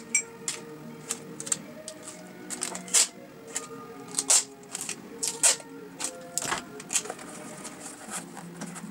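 Brown packing tape being pulled off its roll in short tearing strips and cut with scissors, with handling clicks and the rustle of cardboard as the strips are pressed on.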